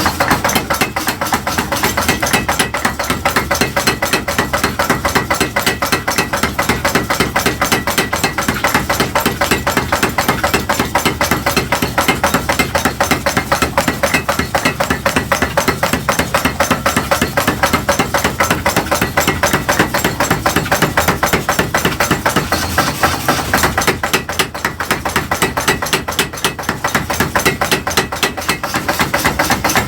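Rapid, steady hammering on metal while forging tongs, several even blows a second without a break.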